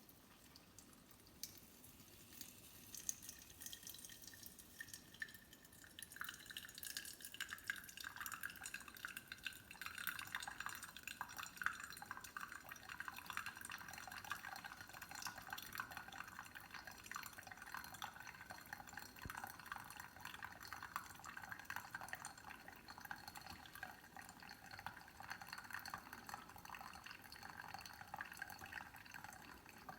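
Water heating in a stovetop pour-over kettle: faint ticking and crackling that build over the first several seconds into a steady dense crackle as the water nears the boil.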